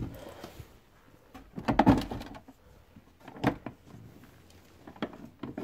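Plastic clicks and knocks from a Ford Mondeo Mk3 glovebox as its catches are released and it is slid outwards. The loudest cluster of knocks comes about two seconds in, and another sharp knock follows about a second and a half later.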